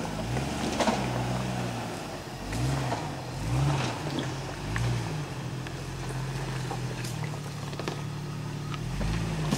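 Four-wheel-drive SUV engine revving up and down in short repeated bursts as it crawls over boulders, then holding a steadier speed in the second half, with a few sharp knocks.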